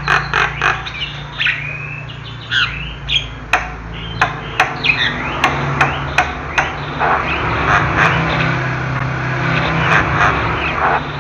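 Javan myna singing: a varied run of harsh squawks, quick whistled glides and sharp clicks, several a second in places.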